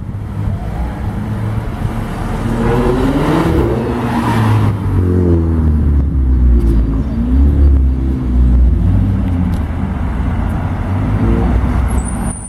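Geiger-tuned Chevrolet Corvette C6's V8 engine rumbling loudly as the car approaches, its pitch rising and falling with the throttle. The sound swells about three seconds in.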